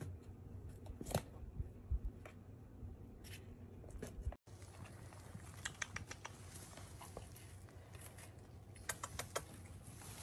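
Kittens playing with toys on a blanket: scattered light clicks, taps and rustles over a low steady hum. The sound drops out for a moment about four seconds in.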